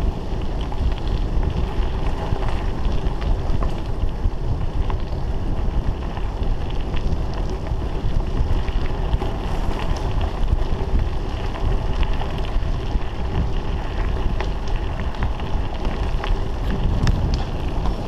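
Wind buffeting the microphone of a bicycle ridden fast over a dirt forest track, with a steady low rumble from the tyres and scattered small rattles from the bike over the rough surface.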